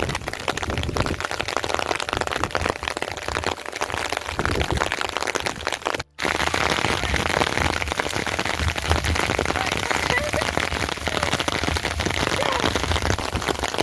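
Heavy rain falling, a dense patter of drops, breaking off for an instant about six seconds in.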